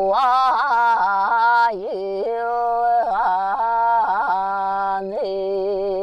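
A woman singing without words in a Sakha throat-singing style: long held notes with quick flicks of pitch between them, several in a row in the first two seconds and again around the middle.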